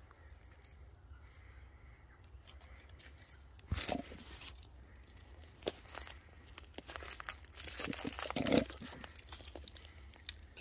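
Koala's claws scratching and gripping eucalyptus bark as it climbs the tree trunk: a run of rough scraping scrapes, loudest about four seconds in and again between seven and nine seconds in.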